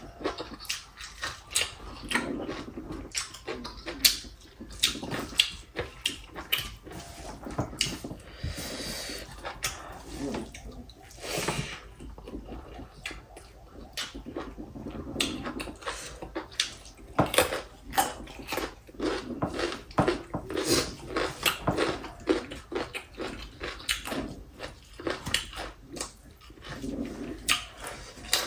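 Close-miked eating sounds: chewing and wet mouth noises with many sharp smacks and clicks, and two short slurps of soup about nine and twelve seconds in.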